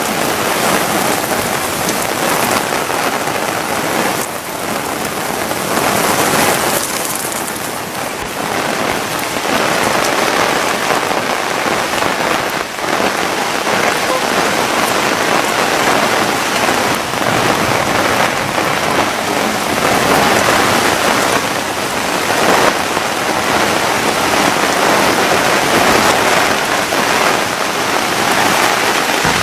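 Heavy rain pouring down in a strong, gusting wind: a dense, loud rush of noise that swells and eases.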